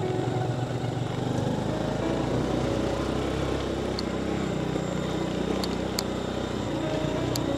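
Motorcycle engine running steadily while riding over a rough dirt forest track, with a few sharp clicks in the second half.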